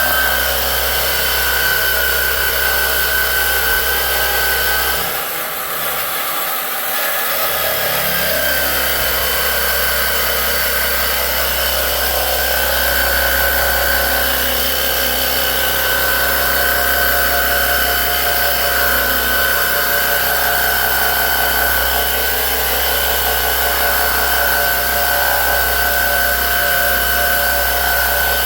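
Electric pressure washer running steadily, a motor whine over the hiss of the spray, as a freshly scrubbed shower is rinsed. The low hum drops away briefly about five seconds in, then comes back.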